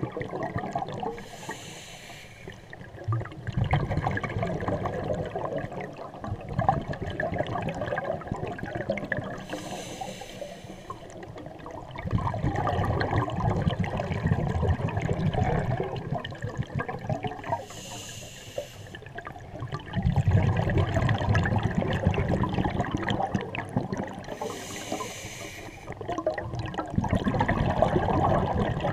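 Scuba diver breathing through a regulator: a short hiss of inhalation, then a long gurgling rush of exhaled bubbles, repeating about every seven to eight seconds, four breaths in all.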